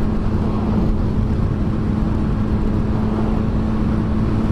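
Triumph Street Triple 765R's three-cylinder engine, fitted with an aftermarket Delkevic exhaust can, running at steady revs while riding, over a steady rush of wind noise.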